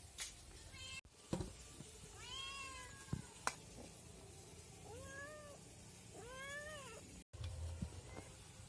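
A cat meowing three times, each meow rising and then falling in pitch, with a few sharp clicks in between.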